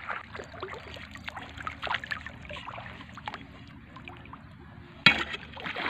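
Flowing shallow water with irregular small splashes and knocks from wading and spearing among rocks, and one sharp, loud splash or knock about five seconds in.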